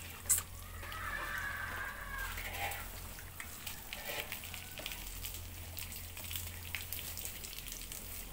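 Water from a garden hose splashing and spattering over a motorcycle, in irregular patters and drips. A single sharp knock about a third of a second in.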